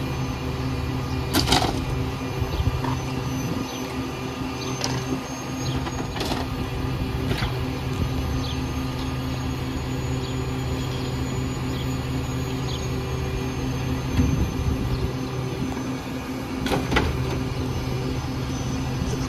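Diesel engine of a Pak-Mor rear loader garbage truck running steadily, with several sharp knocks and clatters as wooden boards and demolition debris are thrown into the rear hopper, the loudest about a second and a half in and again near the end.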